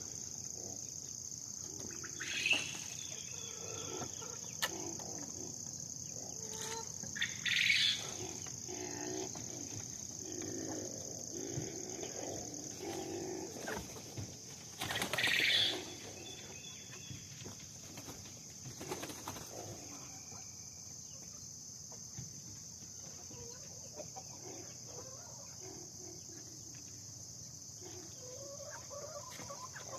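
Chickens clucking, with three louder calls at about 2, 8 and 15 seconds in, over a steady high-pitched insect drone.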